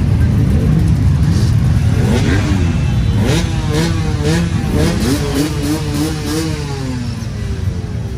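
Many motorcycle engines running together in a low rumble, with motorcycles revving from about two seconds in, the engine pitch rising and falling in quick repeated throttle blips.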